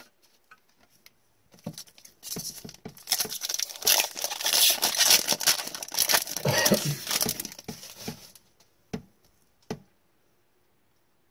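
Foil wrapper of an Upper Deck hockey card pack being torn open and crinkled in gloved hands for about six seconds, followed by two light taps as the cards come out.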